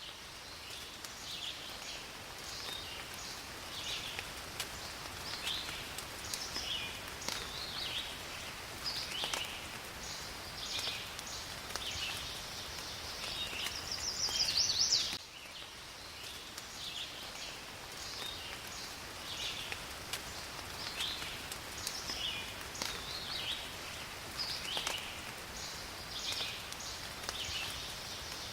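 Rain falling in a forest: a steady hiss with scattered drop ticks, under a busy chorus of short, high chirping animal calls. A short recording is looped, restarting with a sudden dip about halfway through.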